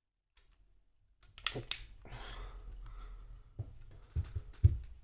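Handling noise at the workbench as the phone with its freshly glued back cover is pressed and set down: two sharp clicks, a couple of seconds of rustling, then a few soft knocks, the loudest near the end.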